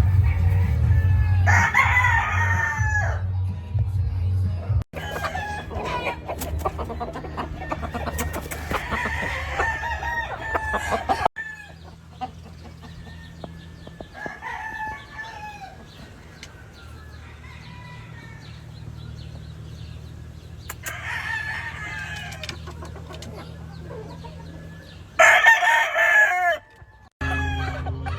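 Roosters crowing, several long crows with the loudest near the end, and softer clucking and calls from other chickens in between.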